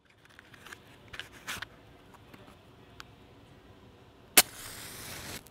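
A few light scrapes and clicks as a matchbox is handled, then a match struck sharply against the box about four seconds in, flaring with a hiss for about a second.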